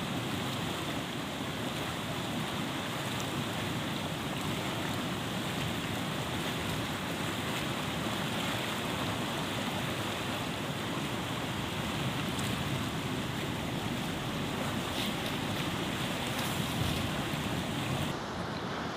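Steady rushing of a fast-flowing, muddy river, an even water noise with no pauses; near the end its hiss turns abruptly duller.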